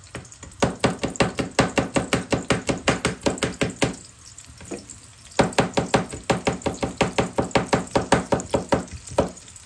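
Knife chopping quickly on a cutting board: two runs of rapid, even strokes, about four or five a second, with a short pause between them.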